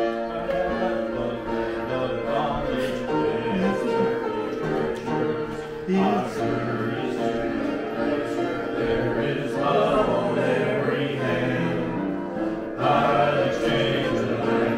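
A group of voices singing a gospel hymn in held, sustained notes, moving from phrase to phrase every few seconds.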